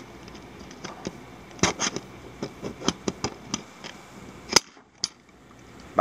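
Small flat-bladed screwdriver prying at the snap tabs of a Delsey TSA lock's plastic back cover: a string of sharp plastic clicks and ticks, with the loudest snap about four and a half seconds in as the last tab lets go.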